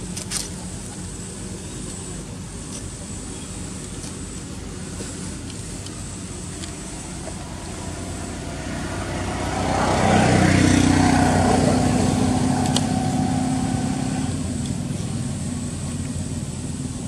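A motor vehicle passing by: a steady engine hum that swells to its loudest about ten seconds in, then fades away. A single sharp click comes just after the start.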